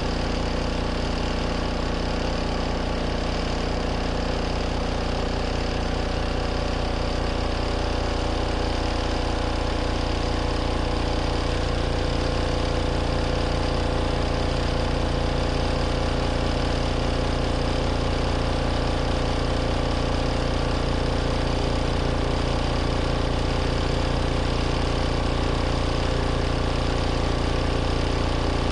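Compact RV washing machine running steadily in the last minutes of its cycle: an even motor hum with a fast, regular pulsing underneath.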